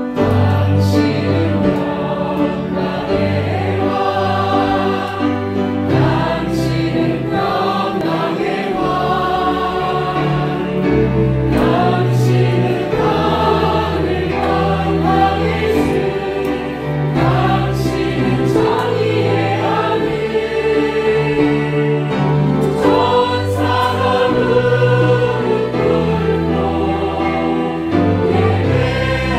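Congregation or choir singing a hymn together with piano accompaniment, the chords changing every second or two.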